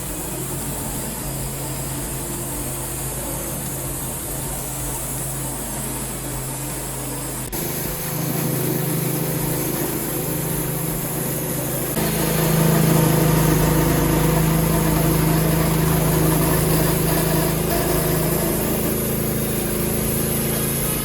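Engine-driven sawmill running steadily with a hissing high end, getting abruptly louder about seven and again about twelve seconds in.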